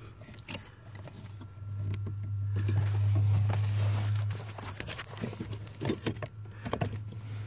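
Small clicks and handling noise from hands working the brake light switch and its unplugged connector under the dashboard, over a low steady hum that grows louder for a few seconds in the middle.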